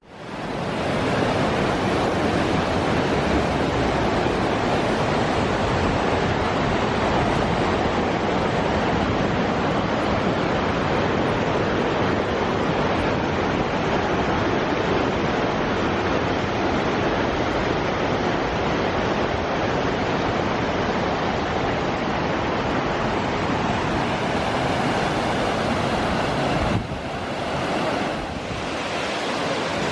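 Waterfall water rushing steadily as an unbroken roar of spray and falling water, a little softer from about 27 seconds in.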